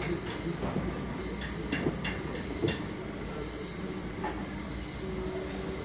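Gas welding torch flame running steadily with a low rushing hiss while aluminium filler rod is melted onto a side-mirror part, with a few short clicks in the first three seconds.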